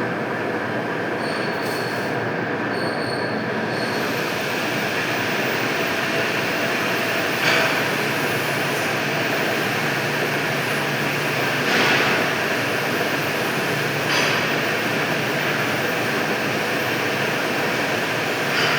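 Pipe-cutting lathe running in a machine shop: a steady, loud metallic machining noise with a squealing edge. It flares briefly louder a few times.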